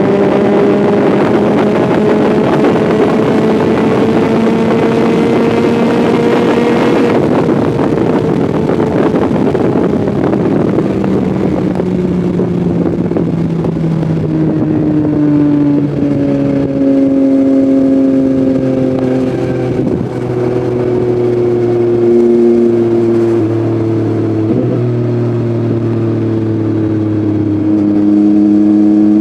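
Yamaha MT-09's inline three-cylinder engine through an Akrapovic full-system exhaust, pulling up through the revs under heavy wind rush for about seven seconds. The revs then fall away in steps as the bike slows, settling to a low, steady run before picking up again near the end.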